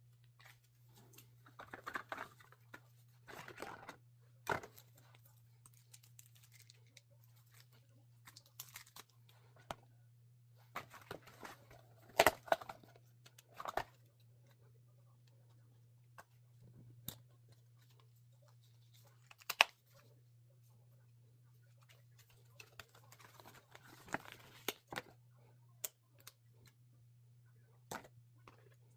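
Intermittent handling noises, rustling and crinkling with sharp clicks and taps every few seconds, the loudest about twelve and twenty seconds in, over a steady low electrical hum.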